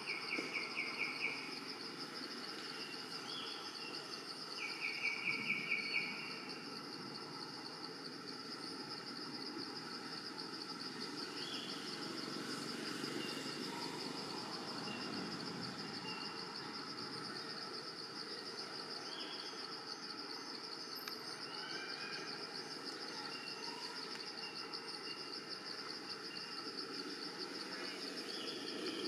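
Forest insects trilling steadily at a high pitch, with two short, louder buzzing insect calls in the first second and again around five seconds in. A few faint, brief bird chirps come and go.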